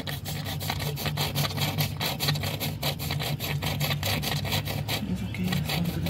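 Quick rasping rubbing strokes, several a second, as a gloved hand rubs and works the rubber coolant hose at the plastic water-neck connector. The rubbing stops about five seconds in. A low steady hum runs underneath.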